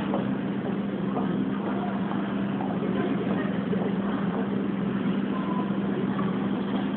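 Steady railway-station platform noise: a constant hum under a general din, with faint voices now and then.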